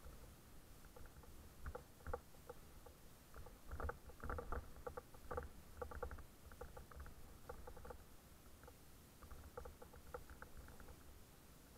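Mountain bike rattling and clattering as it jolts over a rough dirt trail: irregular clicks, some in quick clusters, with the densest clatter about four to six seconds in, over a low rumble from the ride.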